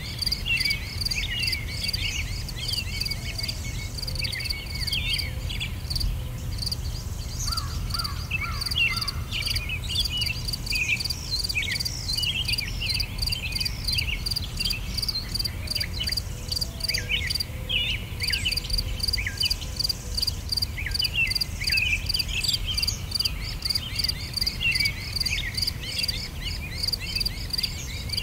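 A background nature track of insects chirping in a fast, even pulse, with many short bird chirps and twitters over it and a low rumble underneath.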